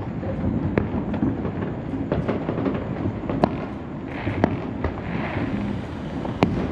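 Many fireworks going off at once, a steady rumble of overlapping booms and pops. Sharper single bangs stand out, the loudest near the end, with a short hiss a little past halfway.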